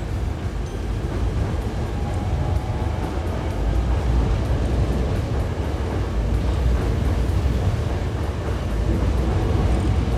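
Hankyu 8000 series electric train with GTO inverter control running, a steady rumble of wheels and motors with a faint tone now and then above it.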